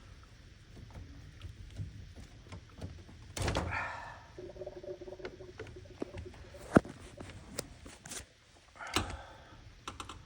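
Scattered clicks and knocks of dishwasher fill-valve and hose parts being handled and fitted, with a heavier thump about three and a half seconds in, a sharp click near seven seconds and another thump near nine seconds.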